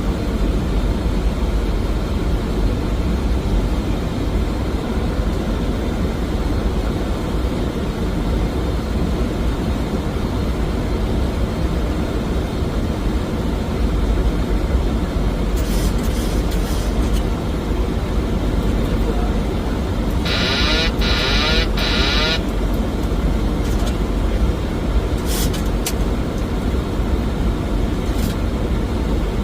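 Steady flight-deck noise of a Boeing 737NG on approach: airflow and engine rumble with a deep low end. About two-thirds through comes a brief buzzing sound, with a few faint clicks around it.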